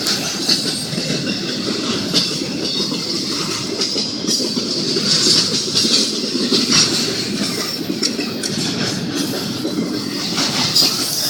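Union Pacific intermodal freight cars rolling past, the wheels clacking over the rail joints with a steady rumble, and a high metallic wheel squeal coming and going.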